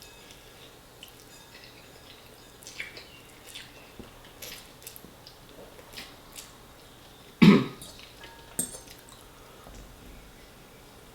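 Close-up mouth sounds of a person eating tomato spaghetti in big mouthfuls: scattered small wet clicks and smacks. One louder, sudden throaty sound comes about seven and a half seconds in, and a smaller one a second later.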